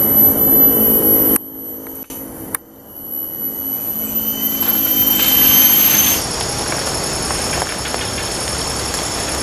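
Steady high-pitched drone of forest insects such as cicadas, in several tones at once with a lower hum beneath. About a second and a half in it cuts out abruptly, with a sharp click about a second later, then the drone comes back.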